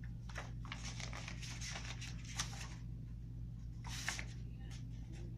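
Paper pages of a paperback picture book rustling as a child's hands flip through them, with a run of rustles in the first few seconds and a sharper page turn about four seconds in, over a low steady hum.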